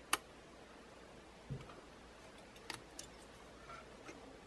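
Sparse small clicks and taps of tweezers and a soldering iron against wires and a circuit board while soldering, with one soft, dull thump about one and a half seconds in.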